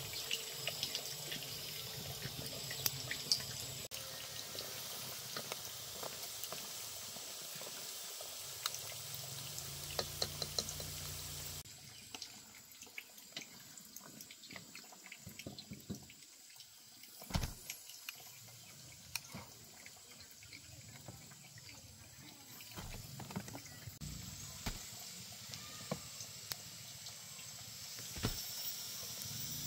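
Water running from a tap into a sink, splashing steadily, with small clinks on top; the flow stops suddenly about twelve seconds in. A quieter stretch follows with scattered knocks and clinks.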